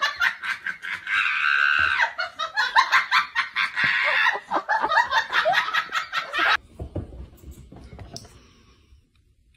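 A person laughing hard and without a break for about six seconds, then it cuts off suddenly, leaving only faint background noise.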